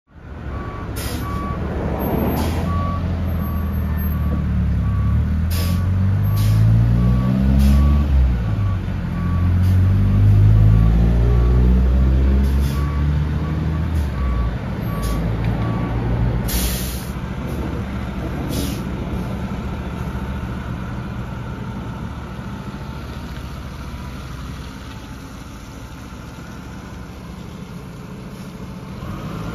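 2010 Pierce Arrow XT fire engine's diesel engine revving up and down while it backs up, its reversing alarm beeping about once a second for roughly the first fifteen seconds. Short air-brake hisses come several times. The engine then runs on more steadily and fades a little as the truck pulls away.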